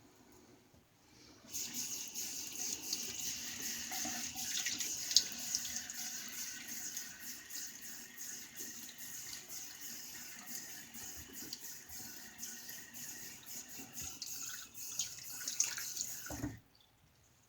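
Water running from a sink tap, starting about a second and a half in, with scattered small ticks in the stream, then shut off abruptly near the end.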